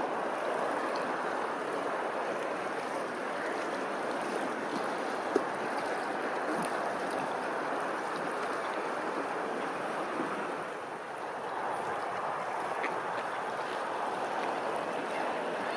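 Running water: a steady rushing, splashing flow. A single sharp click sounds about five seconds in.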